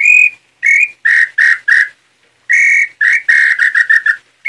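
A hand-made throat-type tinamou call (pio garganta) blown by mouth, imitating the nambu pé-roxo. It whistles two phrases. Each opens with a longer high note and goes into shorter notes that drop slightly in pitch, and the second phrase speeds up into a quick run.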